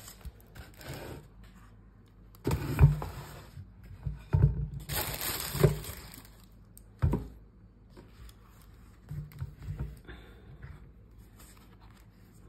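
Rustling, scraping and bumping of flat shoes and tissue paper being handled and lifted out of a shoebox, in several short bursts with quieter gaps between.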